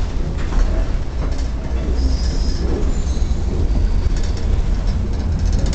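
A 1923 Brill trolley car running on its rails, heard from inside the car: a steady low rumble, with a brief high wheel squeal about two seconds in and a run of clicks from the wheels later on.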